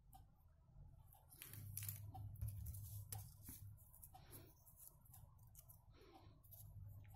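Faint rustling and light ticking of small paper die-cut pieces being handled and picked through in a palm, loudest around two seconds in. A low steady hum runs underneath.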